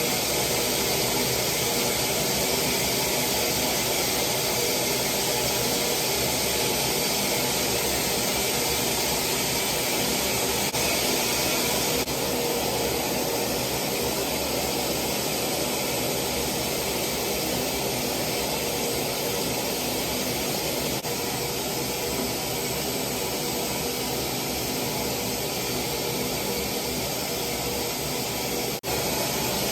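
Techmeri high-speed ionic hair dryer blowing steadily: an even rush of air with a faint motor whine underneath. It dips for a moment near the end.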